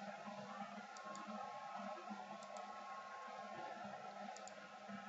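Quiet room tone with a steady faint electrical hum, and three faint double clicks from a computer mouse.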